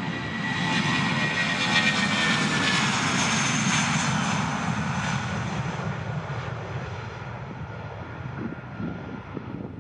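Airbus A320-232's twin IAE V2500 turbofans at takeoff thrust as the jet rolls past on its takeoff run. The engine noise swells to a peak about two to four seconds in, with a high whine that falls in pitch as the aircraft passes, then fades as it moves away.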